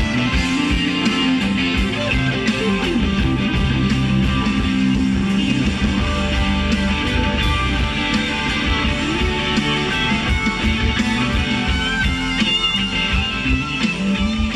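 Guitar music playing through a car audio system of Hertz speakers and subwoofer, tuned by an Audison bit Ten signal processor, heard inside the cab with strong, steady bass.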